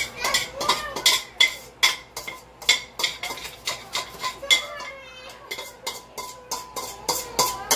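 A metal utensil clattering and scraping against a pan, an irregular run of sharp knocks about two or three a second, as the cooked egg is worked and cleared from it.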